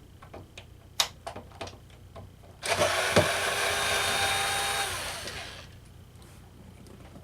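Small electric screwdriver's motor running with a steady whine for about three seconds, driving out a screw that holds a water ionizer's power board, then winding down. Light clicks and taps of handling the screw and parts come before it.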